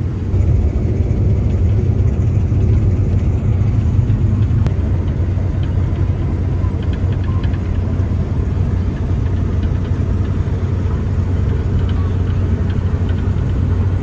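Claas Lexion combine harvester running steadily under load while harvesting, heard from inside the cab as a loud, even, low drone of engine and threshing machinery.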